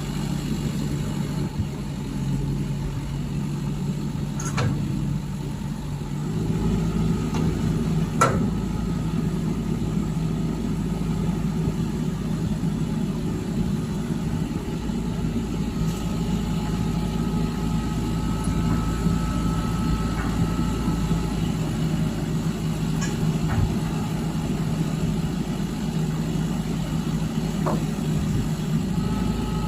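Lorry's diesel engine running steadily; about six seconds in it picks up, running harder and a little higher, with a couple of brief knocks around then.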